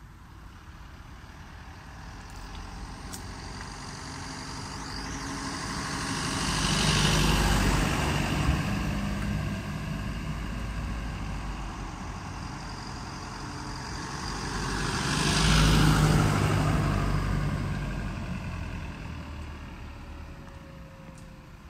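Two motor vehicles passing one after the other, each engine and its road noise rising to a peak and fading away. The first is loudest about seven seconds in, the second about sixteen seconds in.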